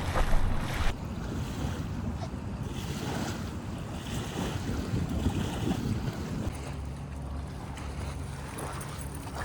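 Wind buffeting the microphone, a low rumble that is strongest in the first second and then settles to a steady low noise.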